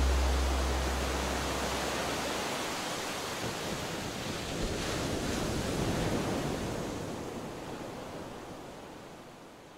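Ocean surf washing on a beach: an even hiss of waves that swells once in the middle and then fades steadily away. A low sustained note of the soundtrack dies out in the first couple of seconds.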